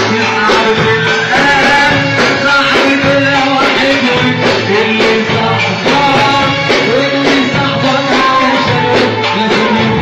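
Live Egyptian sha'bi wedding music: a continuous melodic line over a dense beat from drums and percussion.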